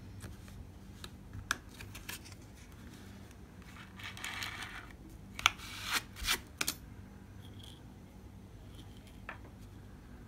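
A scraper drawn once across a steel nail-stamping plate, scraping off the nail polish: a scratchy scrape about a second long, about four seconds in. It is followed by several sharp clicks and taps of the tools being handled on the plate and table, with a few small ticks of handling at other points.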